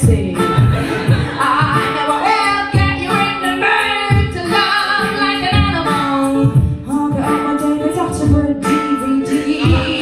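A woman singing a comedy song live over a man's beatboxed rhythm, with low kick-drum-like thuds from the beatboxer under the melody.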